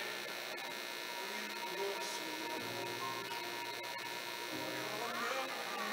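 Steady electrical mains hum, with faint indistinct voices now and then.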